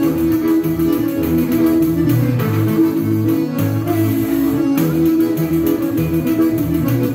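Piano accordion and pandeiro playing a tune together. The accordion holds sustained chords over regularly alternating bass notes, and the pandeiro's jingles keep a steady beat.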